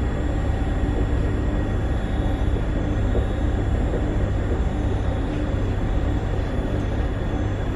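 Newag 19WE electric multiple unit heard from inside the car while running: a steady rumble of wheels and running gear on the track, with a faint steady whine over it.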